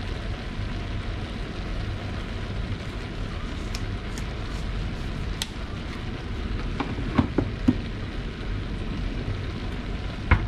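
Large pan of bopis simmering and sizzling steadily on the stove. A few light clicks and knocks come through, a cluster about seven seconds in and one near the end.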